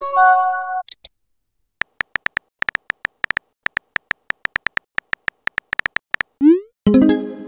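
Texting-app sound effects. A short electronic notification chime plays at the start. Then a run of quick keyboard tap clicks goes on for about four seconds as a message is typed. Near the end comes a short rising whoosh as the message is sent, followed by another chime.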